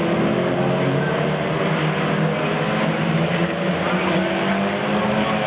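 Several saloon stock car engines running hard in a race, their pitch rising and falling slightly over a steady noise.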